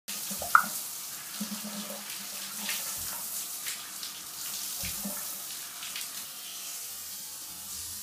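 Running water splashing against a glass shower panel: a steady hiss with irregular splashes. About half a second in, a brief sharp high squeak is the loudest sound.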